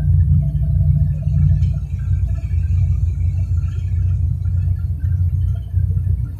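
Steady low rumble of a vehicle travelling at highway speed, heard from inside the cabin.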